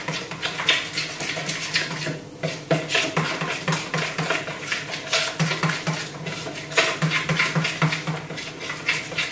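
A spoon stirring a thick chia seed and almond milk mixture in a plastic mixing bowl, with quick repeated scrapes and clicks against the bowl's sides and bottom.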